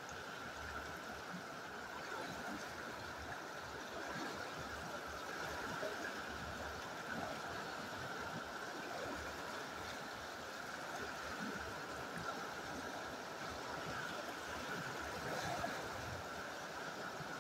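Fast river water rushing over rocks, a steady wash of sound.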